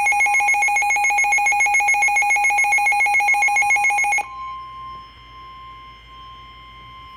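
Emergency weather alert tones: a loud, rapidly pulsing electronic warble sounds for about four seconds and then cuts off suddenly, leaving a quieter single steady tone, the NOAA Weather Radio 1050 Hz warning alarm tone, which signals a warning-level alert such as a flood warning.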